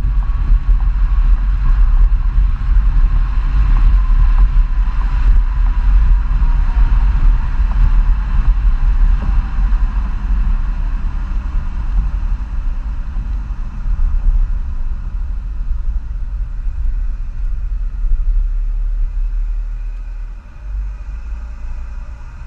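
2015 Jeep Grand Cherokee EcoDiesel's 3.0 L V6 turbodiesel, Stage 2 tuned with the DPF and EGR deleted, running under way with a deep exhaust rumble. A thin whine falls in pitch over the first ten seconds, and the sound eases off near the end as the Jeep slows.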